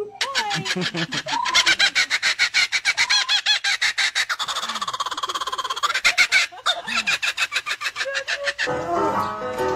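Laughing kookaburra giving its laughing call: a long run of rapid, repeated hooting notes, many a second, that rises and falls, stopping shortly before the end.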